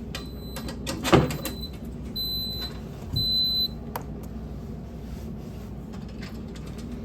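Oven control panel beeping twice, each a high steady electronic tone about half a second long, as its keypad is pressed to clear the power-failure reset. There is a sharp click about a second in.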